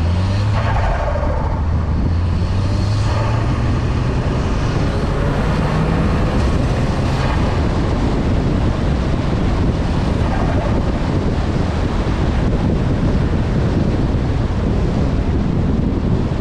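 Volkswagen Golf Mk6 R's turbocharged four-cylinder engine pulling under way, its note rising slowly over the first several seconds. After that, steady rushing wind and road noise at speed dominates.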